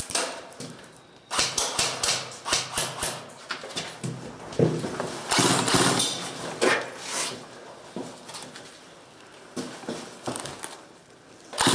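Airsoft guns firing in an empty concrete room: a run of sharp separate shot clicks a second or two in, then a louder, denser burst about five to six seconds in, with scattered clicks after.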